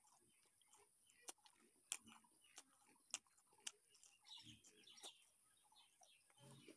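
Close-up eating sounds: biting and chewing a fried chicken leg on the bone, with a scatter of sharp clicks and crunches.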